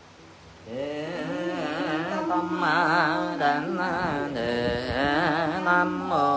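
Vietnamese Buddhist chanting: a voice intones a drawn-out, melismatic line whose pitch wavers and glides. It starts about a second in and breaks off near the end.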